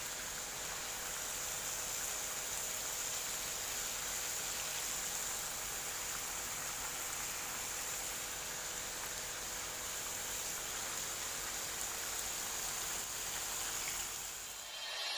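Steady sizzling of chicken deep-frying in hot oil, a continuous rain-like hiss.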